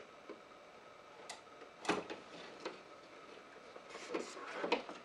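Plastic embroidery hoop being unclipped and slid off the carriage of a Brother Stellaire embroidery machine: a few scattered clicks and knocks, the sharpest about two seconds in, then a cluster of smaller clicks with fabric rustle near the end.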